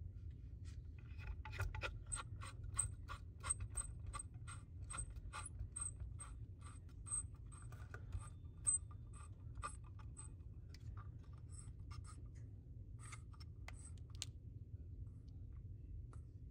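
Short, light clicks from a metal back-glass clamp press being handled: a run of evenly spaced clicks, about two or three a second, then a few irregular clicks, over a steady low hum.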